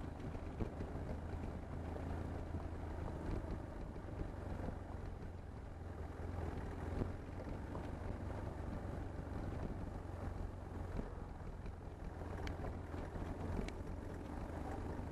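BMW R1150GS sidecar rig's boxer-twin engine running steadily on a gravel road, with wind noise on the microphone. A few sharp ticks come near the end.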